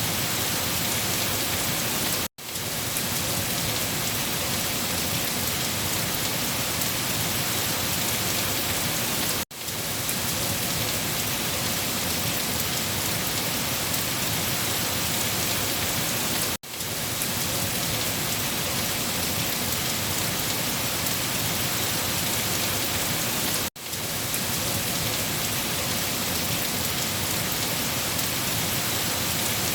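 Steady rain falling, an even hiss. It cuts out for a split second four times, about every seven seconds, and swells quickly back each time.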